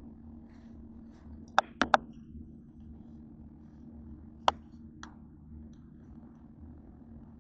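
Metal fork clicking against a plate: three quick clinks about a second and a half in, then a single louder one past the middle and a fainter one just after, over a steady low hum.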